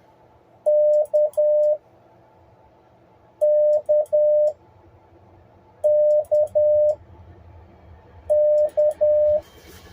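Morse code letter K (dah-dit-dah: long, short, long) sent four times as a steady mid-pitched CW tone, each group a little over a second long and two to three seconds apart.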